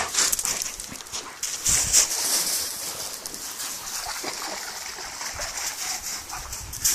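Dogs playing on a shingle beach: crunching on pebbles and splashing in shallow water, with occasional brief dog noises. The loudest moments come right at the start and about two seconds in.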